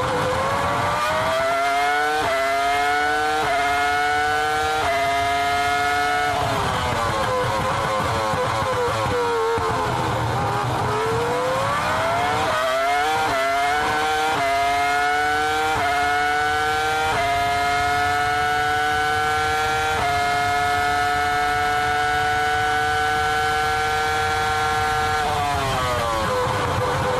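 High-revving race car engine accelerating through quick gear changes, its pitch climbing in steps. Around the middle it falls away as the car slows, then climbs through the gears again, holds a steady high note, and falls off near the end.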